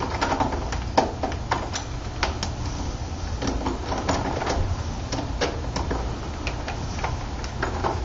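Screwdriver working the machine screws of a door knob lockset, with irregular light metallic clicks, a couple a second, as the screws are loosened and the knob assembly reset to free a binding latch.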